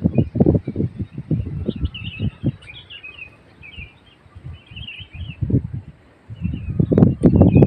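Small birds chirping and twittering in short scattered calls, over loud irregular low thuds and rumbles that grow heavier near the end.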